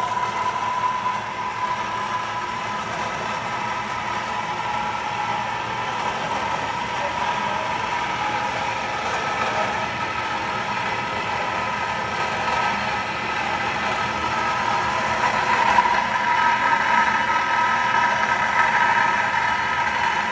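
A machine running steadily: a motor's drone with a steady whine in it, growing a little louder about two-thirds of the way through.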